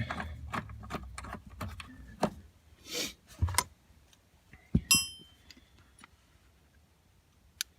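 Metal hand tools and hardware being handled while a 10mm bolt is refitted: irregular small metallic clicks and clinks, with one brighter, ringing metal clink about five seconds in.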